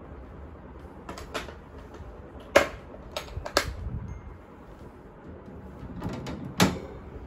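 Scattered sharp clicks and taps from a dwarf hamster moving about its acrylic cage and paper bedding, about seven in all, the loudest about two and a half seconds in and another near the end.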